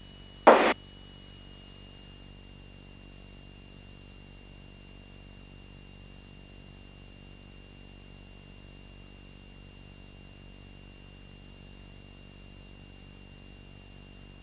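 Steady drone of a Beechcraft Sundowner's engine heard muffled through the headset intercom feed, with static hiss and a faint steady high whine. A short burst of radio squelch comes about half a second in.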